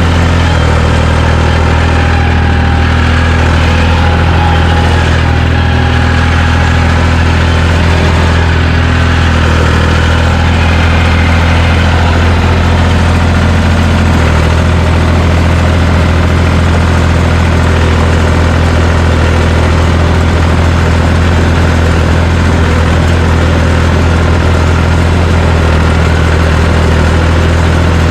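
John Deere 350 crawler dozer's engine running steadily at an even speed, heard close up.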